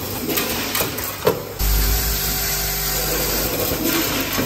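Automatic vibratory counting and packing machine running: a steady mechanical hum with tablets rattling in the feeder, broken by a few sharp clicks, the loudest about a second in. A louder, deeper hum comes in about one and a half seconds in.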